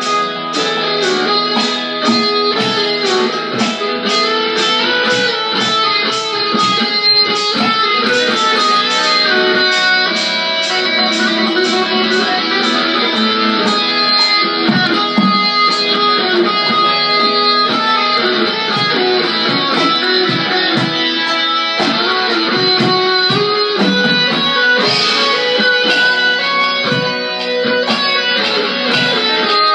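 Electric guitar being played in an informal jam, a continuous run of notes and strums.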